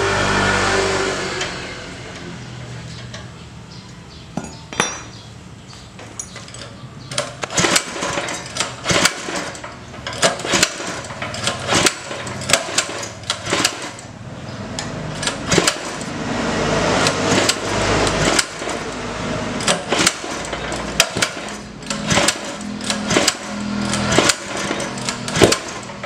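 Honda GX160-type petrol engine being pull-started again and again by its recoil starter: rasping pulls mixed with many irregular clicks and rattles, and the engine never fires. It won't start, which the owner puts down to a dead spark plug and a starter that feels loose.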